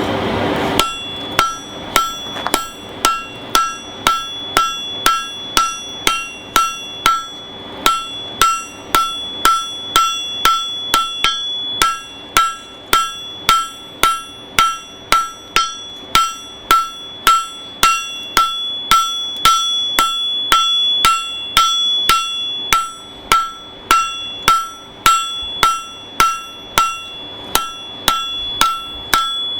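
Blacksmith's hammer striking a horseshoe on an anvil, about two blows a second with a few short pauses, each blow ringing with a high metallic tone. The blows are flattening the horseshoe as it is forged into a heart.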